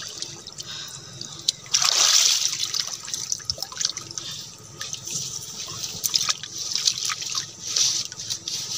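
Water splashing and trickling around people moving chest-deep in it while handling bamboo slats, with scattered light clicks and knocks. The splashing swells about two seconds in and again near the end.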